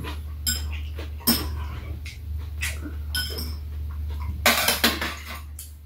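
Metal spoon and chopsticks clicking and clinking against rice bowls during a meal, with scattered short clicks and a louder burst of noise about four and a half seconds in, over a steady low hum.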